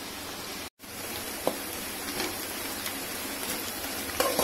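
Sliced onions sizzling steadily in hot oil in a steel kadai, being fried until brown and crisp, with a few clicks of a slotted spoon stirring them. The sound drops out briefly about a second in.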